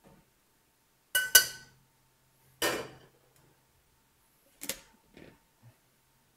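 Stainless steel pots, pans and metal tongs clanking: a sharp, ringing metal clank about a second in, followed by three or four lighter knocks.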